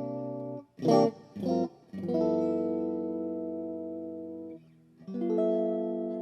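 Fernandes Stratocaster-style electric guitar playing chords: two short, muted strums, then a chord left ringing and fading for about two and a half seconds before it is cut off, and another chord struck near the end and left to ring.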